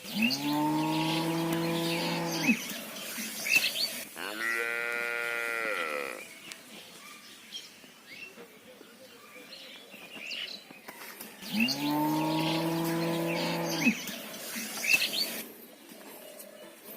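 Cattle mooing: a long, low moo at the start, a shorter, higher-pitched moo about four seconds in, and another long, low moo about twelve seconds in.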